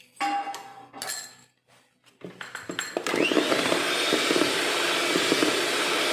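A few knocks and clinks against a mixing bowl, then an electric mixer switches on about halfway through with a short rising whine and runs steadily, beating cake batter.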